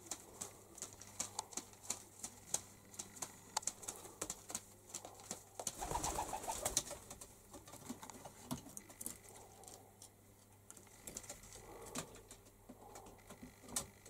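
Rock pigeons cooing softly, with many sharp clicks through the first half and a louder rustle about six seconds in.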